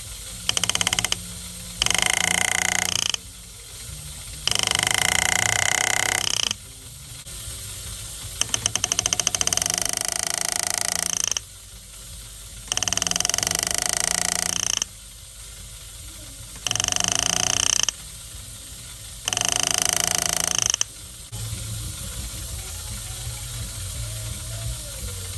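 A jeweler's graver buzzing in about seven bursts of one to two seconds each, each one switching on and off sharply, as it cuts the V facets under the pavé diamonds of an 18k white gold band. A low steady hum runs underneath and gets louder near the end.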